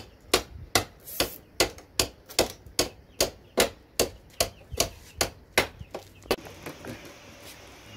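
Steady hammering: sharp, even blows about two and a half a second that stop about six seconds in.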